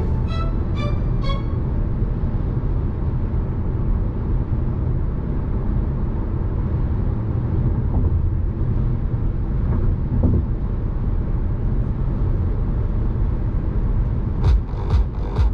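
Steady low rumble of a car driving on an expressway: engine and tyre road noise. Music fades out about a second in and starts again near the end.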